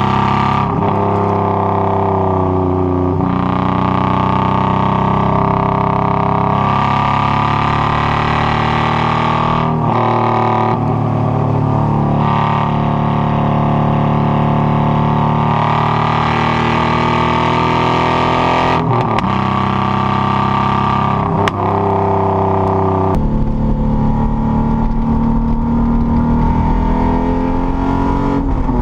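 A Datsun 240Z's inline-six engine pulling hard through the gears. The engine note climbs steadily, then breaks off and drops at each of several gear shifts. Near the end it settles into a rougher, lower drone.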